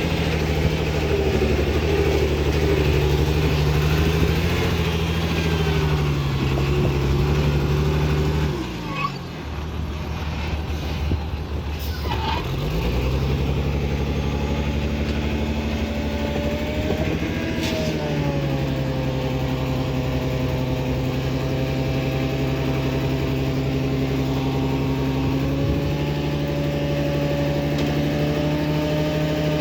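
Heavy diesel engine of earthmoving machinery running under load. It drops to a lower, quieter note about nine seconds in, picks up again a few seconds later and then runs steadily, its pitch shifting a little.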